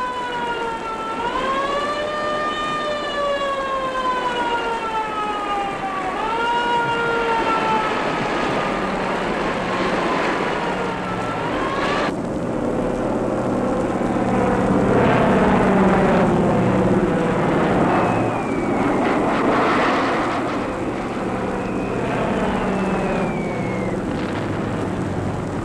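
Air-raid siren wailing in slow swells, its pitch rising and falling, then cutting off abruptly about twelve seconds in. Aircraft engines drone after that, with a couple of short falling whistles near the end.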